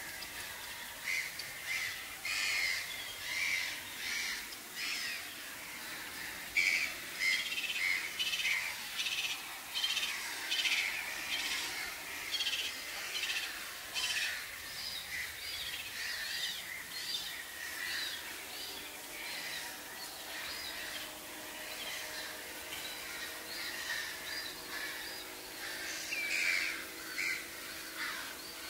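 Many waterbirds calling, short calls overlapping several a second. They are busiest through the first half, thin out, then pick up again near the end.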